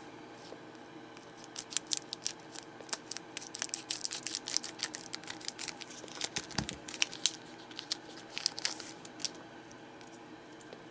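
Scissors cutting open a foil trading-card booster pack, followed by the wrapper crinkling as the cards are pulled out: a dense run of small snips and crackles that starts about a second and a half in and dies away near the end.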